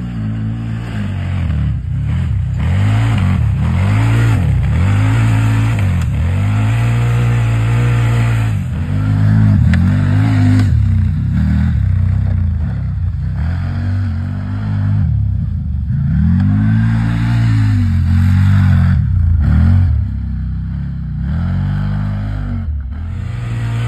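CFMOTO side-by-side's engine revving hard, its pitch climbing and falling back again and again as the throttle is worked, with a hiss of noise above it.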